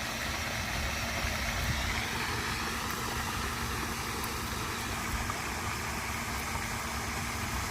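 Steady low rumble with a faint constant hum, like an engine idling.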